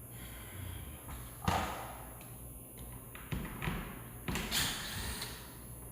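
A sharp thump about one and a half seconds in, then several lighter taps and knocks with rustling, as of tools and hardware being handled.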